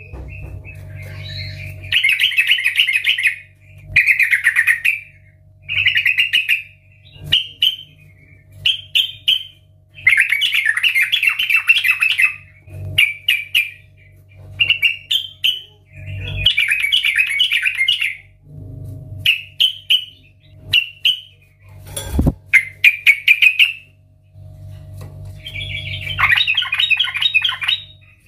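Yellow-vented bulbul in full, loud song: a run of bubbly, chattering phrases of one to two seconds each, separated by short gaps and shorter single notes. A single sharp click about two-thirds of the way through.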